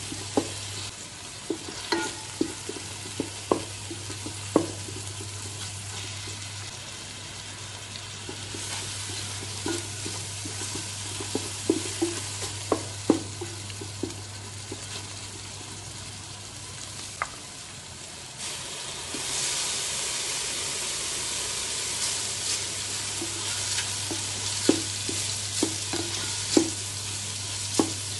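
Food frying with a steady sizzle in an aluminium rice cooker pot, stirred with a wooden spatula that knocks and scrapes sharply against the pot. About two-thirds of the way in the sizzle grows louder and hissier as the fusilli pasta goes in.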